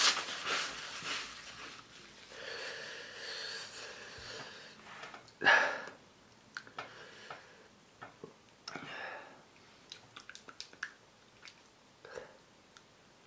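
A man sniffling into a tissue and breathing in long, wheezy breaths, with a sharp sniff about five seconds in and small mouth clicks and smacks later on: his nose and mouth are burning from food seasoned with pepper spray.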